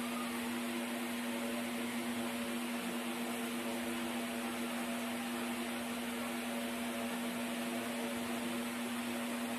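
Steady mechanical hum with a constant low tone and a faint hiss, unchanging throughout.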